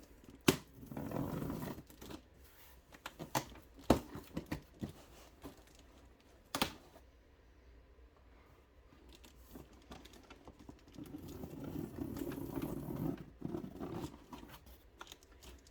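A cardboard shipping box being slit open along its tape with a small blade: sharp knocks and taps against the box, with scraping, tearing stretches as the tape is cut, the longest one near the end.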